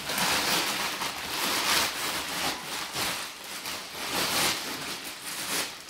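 Thick plastic wrapping crinkling and rustling in uneven surges as it is pulled off a vacuum-compressed block of shredded memory-foam filling, with air rushing in as the foam expands.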